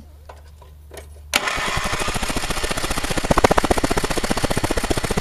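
Wheel Horse A90 garden tractor engine being cranked over, starting suddenly about a second and a half in as a fast, even pulsing that keeps going without the engine catching. It is a no-start: the spark is good, and the owner suspects the engine is not getting fuel.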